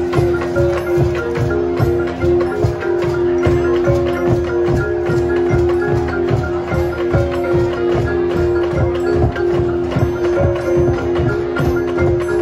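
High school marching band playing: a sustained held chord over a steady percussion beat, with mallet percussion from the front ensemble.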